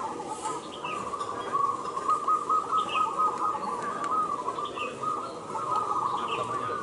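Many caged zebra doves (perkutut) cooing at once in a dense, continuous chorus. Four short falling chirps from another bird sound above it, about two seconds apart.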